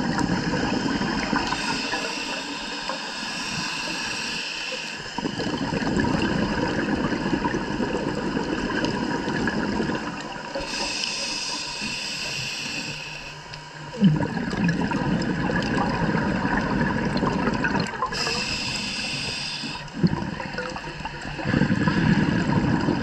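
Scuba regulator breathing heard underwater: three hissing inhalations through the demand valve, each followed by a longer stretch of bubbling as exhaled air vents from the regulator, about one breath every eight seconds.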